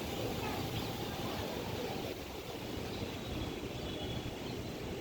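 Strong wind rushing and buffeting the microphone, a steady noise with a deep rumble underneath.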